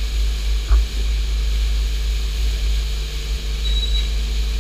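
Automatic car wash running: a steady hiss of water spray over a deep rumble, with a single short knock under a second in.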